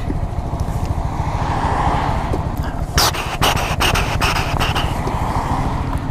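2017 Honda Grom's 125 cc single-cylinder four-stroke engine idling in neutral with a steady low pulse. A few sharp clicks come about three seconds in.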